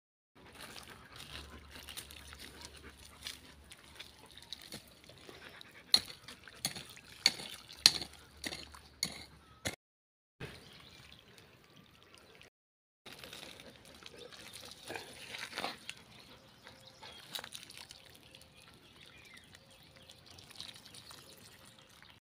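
A hand trowel digs and scrapes through gravelly soil, with a run of sharp knocks and clinks about six to ten seconds in. Later, water from a garden hose trickles and splashes onto the soil around a newly planted brinjal seedling.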